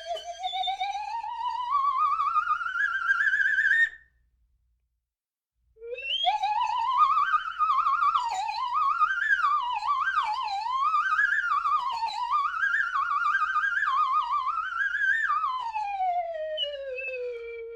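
Slide whistle with a wavering vibrato, gliding slowly up in pitch and stopping. After a pause of under two seconds it rises again, swoops up and down several times, and slides down to a low held note near the end.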